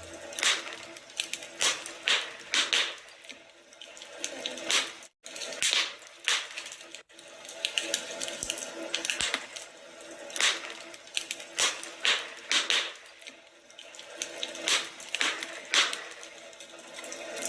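Wood fire in a fireplace crackling and popping: a steady hiss with irregular sharp snaps, the sound cutting out for an instant twice, about five and seven seconds in.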